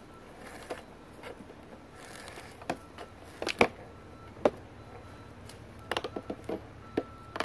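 Fish on a rope stringer being handled and shifted about on a plastic cooler lid: a series of sharp taps and knocks, sparse at first, then a quick run of them near the end.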